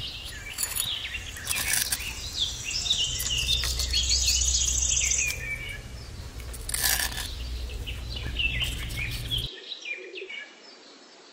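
Small birds chirping repeatedly over a steady low hum, which cuts off suddenly near the end. A few short scrapes come from a small trowel working wet cement mortar into a steel bowl.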